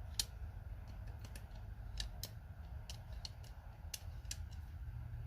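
Irregular sharp clicks, about a dozen, as a set of indexable pry bars is handled, over a steady low hum.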